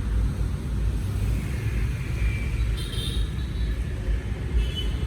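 Steady low rumble of a vehicle moving along a road, with faint brief high-pitched tones about three seconds in and again near the end.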